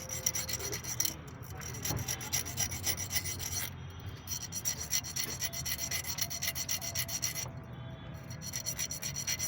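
Rapid rasping strokes of a hand tool working a metal engine part, filing or scraping, in runs broken by three short pauses.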